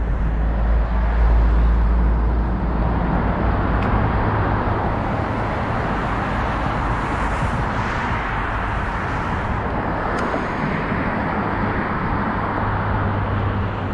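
Steady road traffic noise: an even, continuous rush of passing vehicles with a low rumble that is strongest in the first few seconds.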